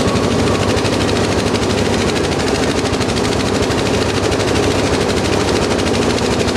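A string of firecrackers going off: a loud, unbroken run of rapid cracks.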